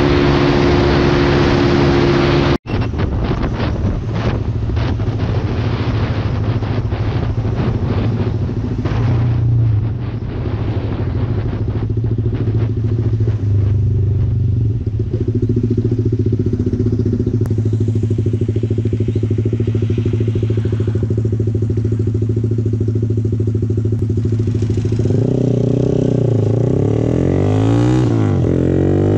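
Motorcycle engine running steadily at road speed, with wind rushing over the microphone. The sound cuts out for an instant about two and a half seconds in. In the last few seconds the engine pitch swings up and down several times.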